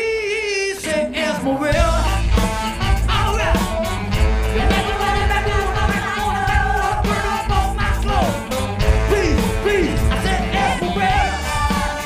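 Live band playing a song, with lead and backing vocals. The bass and drums drop out for about a second and a half near the start, then the full band comes back in.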